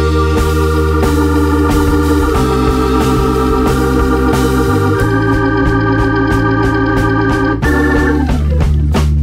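Background music: held organ-like chords over a steady bass, the chord changing every two to three seconds.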